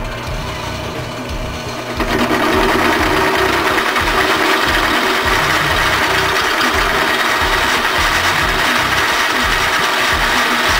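Electric power tool motor running steadily, getting louder about two seconds in and holding there.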